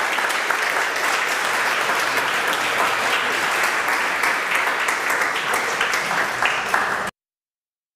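Audience applauding: many hands clapping steadily, cutting off abruptly about seven seconds in.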